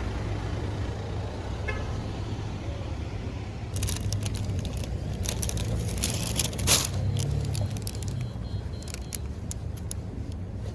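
Steady low rumble of a vehicle, with scattered clicks and crackles over the second half and one sharp click about seven seconds in.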